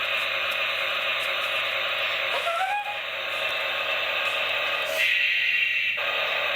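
Huina remote-control tower crane's built-in sound effects playing through its small speaker after it is switched on: a steady, noisy machine sound that changes about five seconds in.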